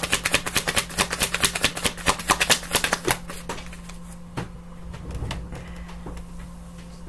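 A deck of tarot cards being shuffled by hand: a fast run of crisp card clicks that stops about three seconds in, followed by a few scattered taps as cards are handled.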